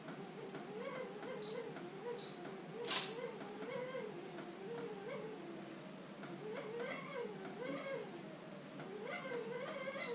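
A wavering, pitched, voice-like sound rises and falls almost without a break. Over it, a camera gives two short high focus beeps, then the sharp click of its shutter about three seconds in, and another beep near the end.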